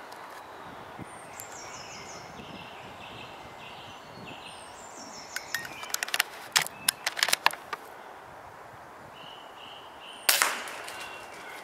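Single shot from an FX Hybrid pre-charged air rifle about ten seconds in, a sharp crack with a short tail after it. Before it, small birds chirp and call, with a quick run of sharp clicks a little past the middle.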